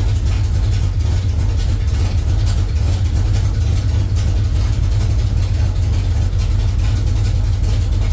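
Truck engine fitted with a self-learning FAST throttle-body EFI, idling steadily with a low, even rumble while the fuel system learns its idle, targeting about 850 RPM.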